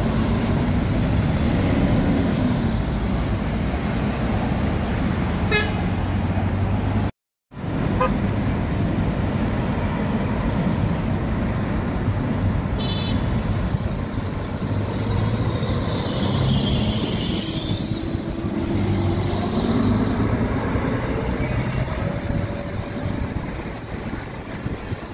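Busy bus-terminal traffic: engines of buses and other vehicles running with a steady low rumble, and horns honking. The sound cuts out completely for a moment about seven seconds in.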